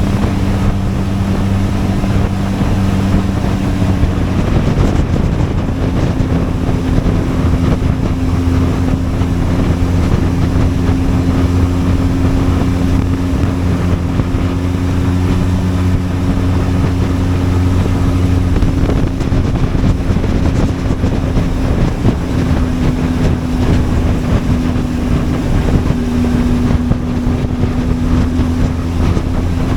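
Benelli TRK 502X's parallel-twin engine running steadily under way, with wind buffeting the microphone. The engine note changes about four to five seconds in, then holds steady.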